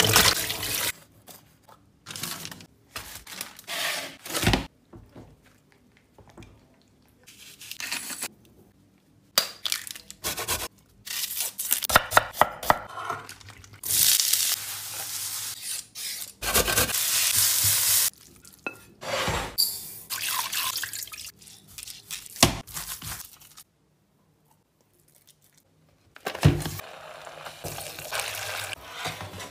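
A run of cooking sounds in short separate stretches: green peppers splashing in water in a kitchen sink, chopped onion tipped into a hot frying pan and sizzling, and a spatula stirring onion and tomato frying in the pan. A couple of seconds of silence fall near the end.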